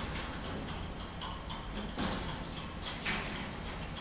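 Common marmoset giving short, high-pitched whistled calls, one about half a second in and another near three seconds, with scattered light clicks and knocks around them.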